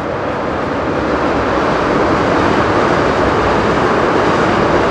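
A passing train: a loud, steady rushing noise that grows slightly louder.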